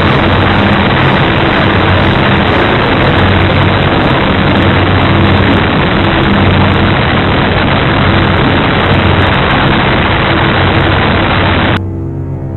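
Loud, steady rushing hiss of wind and motor noise from a radio-controlled model plane in flight, picked up by its onboard camera, with a low steady drone underneath. Near the end it cuts off abruptly and dark-toned music begins.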